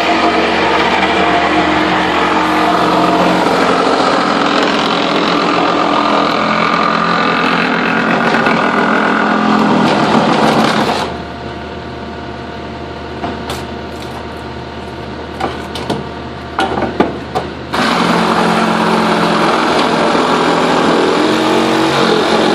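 Reciprocating saw (Sawzall) running hard as it cuts through the shelving. It stops about halfway through, leaving a few scattered knocks, then starts again sharply near the end. A diesel track loader idles steadily underneath.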